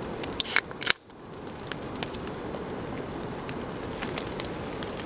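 Small canister camp stove burning with a steady hiss while a sausage roasts over its flame, with scattered faint ticks. About half a second in come two short, loud hissing bursts, the loudest sound.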